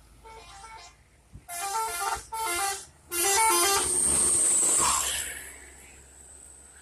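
Bus telolet horn playing its multi-note tune: a faint phrase, then three loud phrases of stepped notes, the last held for about two seconds before fading into a rush of noise.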